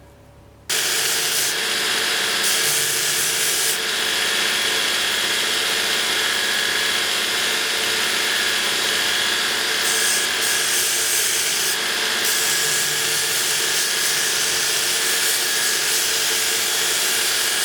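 Electric grinder running with abrasive grinding on steel, a steady rasping hiss over the motor's tones that starts abruptly about a second in. The hiss swells and eases a few times as the contact with the steel changes.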